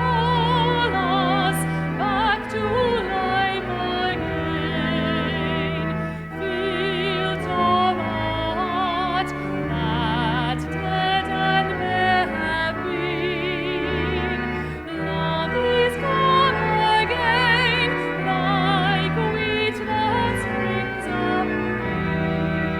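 Classical-style singing with strong vibrato over sustained organ accompaniment: church music.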